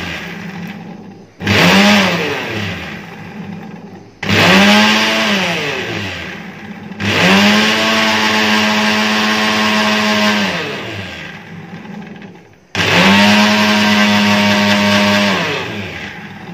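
Prestige Deluxe mixer grinder run in pulses with its pulse button, whipping egg whites with lemon juice into a frothy liquid. Four bursts: the first two short, the last two held for about three seconds, each motor whine rising quickly and sinking as the blades coast down after release.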